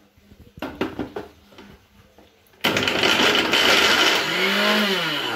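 A few clicks and knocks as a plastic lid is fitted onto a steel mixer-grinder jar, then about two and a half seconds in the electric mixer grinder starts abruptly and runs loud, grinding a thick paste of pitted dates. Near the end the motor's hum rises and then drops in pitch as it labours under the sticky load.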